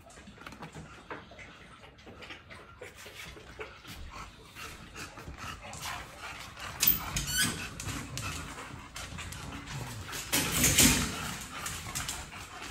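Dogs at a metal pet gate whimpering, with a brief high whine about seven seconds in and a louder burst of sound about ten to eleven seconds in, over scattered clicks.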